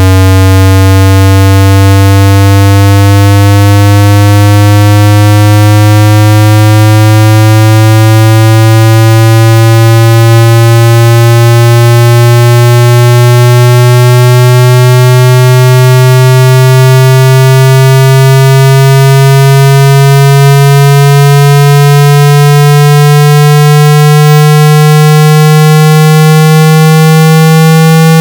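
Square-wave test tone from a hearing-test frequency sweep: a loud, low buzzing tone rising slowly and steadily in pitch at an even level.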